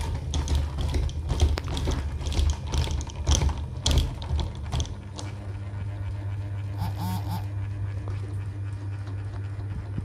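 Viar Bright G mini ceiling fan running, its motor humming steadily. For the first half irregular clicks and rattles sound over the hum, then stop, leaving the even hum; a brief squeak is heard about seven seconds in.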